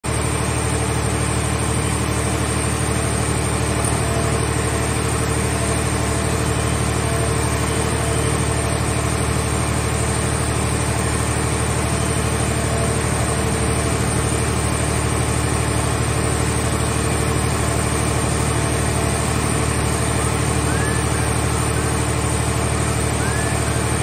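Heavy hydraulic scrap-car baling machinery running with a steady, unchanging hum, with no crushing or impacts. A few faint high squeaks near the end.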